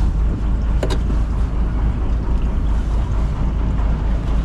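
Steady low rumble of wind buffeting the microphone and the boat at sea, with one sharp knock a little under a second in.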